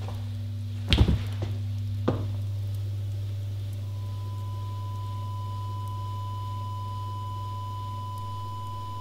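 A person collapsing onto the floor: a heavy thud about a second in, then a lighter knock about a second later, over a steady low hum. From about four seconds in, a steady high-pitched tone rings on.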